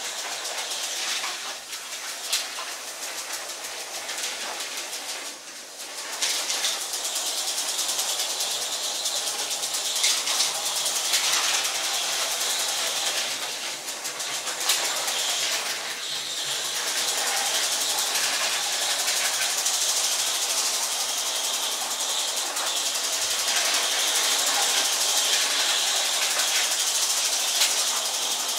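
Lego 12V electric train running around its track: the steady whir of the motor and the rattle of plastic wheels over the rails, with a few sharper clicks here and there.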